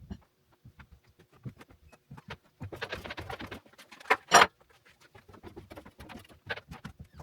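A run of small clicks and taps, with a dense flurry about three seconds in and two sharp, loud knocks just after four seconds.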